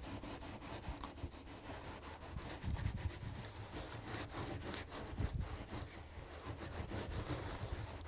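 Faint, repeated swishing of a wet hand rubbing over setting Sculptamold, smoothing the plaster-like surface so that it glazes. A couple of soft low bumps come midway.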